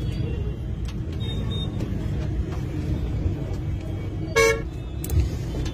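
Steady street traffic rumble, with one short vehicle horn toot about four and a half seconds in.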